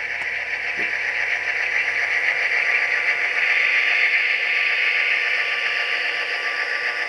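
An HO-scale model EMD SD9 diesel locomotive's SoundTraxx Tsunami sound decoder playing its diesel engine sound through the model's small onboard speaker as the locomotive runs at speed step 9. It is a steady, thin-sounding engine drone with a hiss-like edge that swells a little partway through and then holds.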